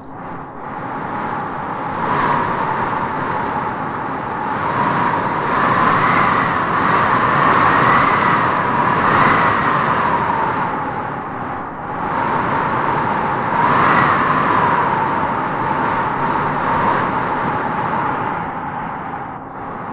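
Wind howling in gusts: a whistling howl that rises and falls in pitch over a steady rush of noise. It swells strongest in the middle and again about two-thirds of the way through.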